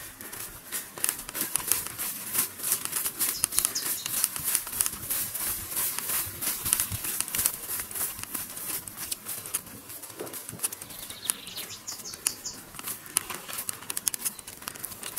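Footsteps through tall grass and undergrowth: a steady, dense swishing and rustling of vegetation against legs and clothing while walking.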